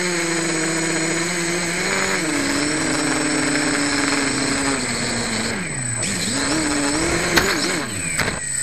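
Homemade quadcopter's electric motors and propellers whining up close, the pitch shifting with throttle. Near the end the pitch drops and climbs again, then a sharp knock and a few more knocks as the quad comes down into the grass.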